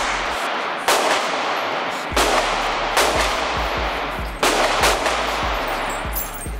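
Pistol fired shot by shot, five shots roughly a second apart, each echoing in an indoor shooting range.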